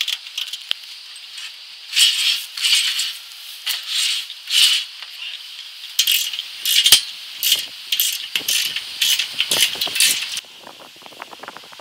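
Irregular short bursts of rattling, scraping metal with a few sharp clicks, from a solar panel's aluminium frame and its fixing hardware being worked along a metal strut rail as the panel is mounted. The bursts stop abruptly near the end.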